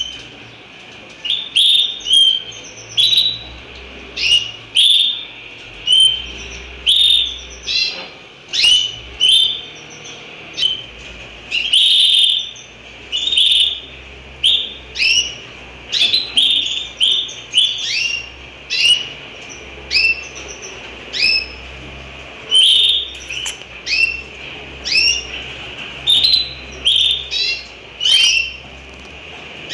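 Canaries chirping: loud, short whistled calls, many sliding down in pitch, repeated a little more than once a second.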